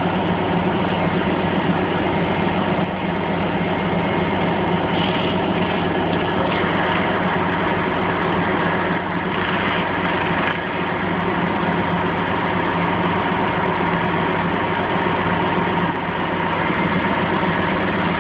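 Crane engine running steadily at an even pitch while it holds a rooftop air-conditioning unit on its cables.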